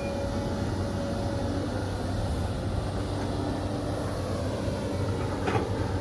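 Caterpillar 320D L excavator's diesel engine running steadily with a constant low hum, and a single sharp clank near the end.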